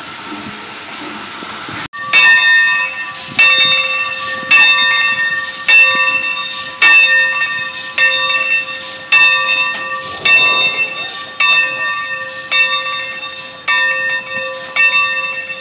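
Steam hissing steadily from a large steam locomotive at close range. About two seconds in it gives way to a steam locomotive's bell ringing steadily, about one strike a second.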